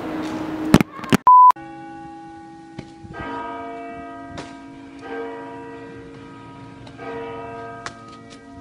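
Church bells ringing, a new stroke roughly every two seconds, each one ringing on over the last. Just before the bells start, a sharp click and then a short, loud beep tone.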